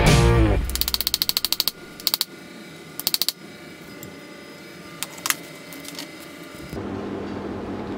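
Music ends in the first half second, then a hand ratchet clicks in quick runs of about ten clicks a second, with a few single clicks after. A steady low hum comes in near the end.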